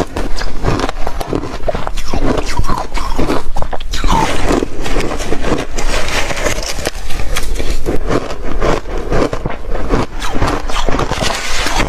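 Close-up crunching and chewing of shaved refrigerator frost ice, a dense, unbroken run of crisp crunches.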